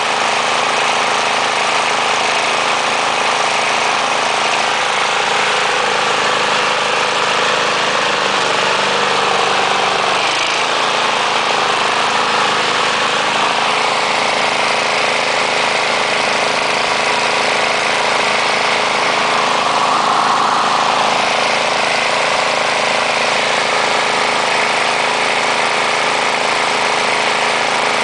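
3.5 hp Briggs & Stratton engine on a 1991 Murray 20-inch push mower running at a steady speed, with a brief shift in pitch about ten seconds in. It no longer surges up and down now that the carburetor's wrinkled diaphragm has been replaced.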